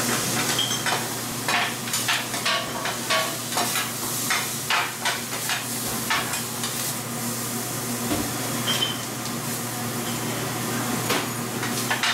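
Meat and vegetables sizzling on a flat-top griddle, with a metal spatula scraping and clacking irregularly against the hot plate as the food is turned and chopped. A steady low hum runs underneath.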